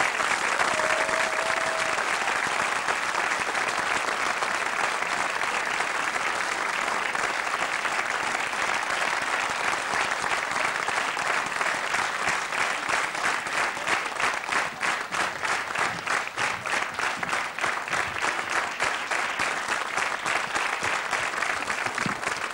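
Audience applauding; about halfway through, the clapping falls into rhythmic unison at about three claps a second.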